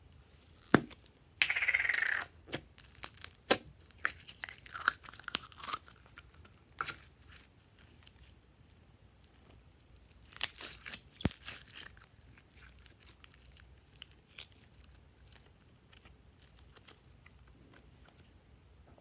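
A plastic slime container being opened and pink metallic slime pulled out by hand: a sharp click about a second in, a short scraping noise, then a run of clicks and crackles. Another cluster of clicks and crackles comes about ten seconds in, then faint crackling.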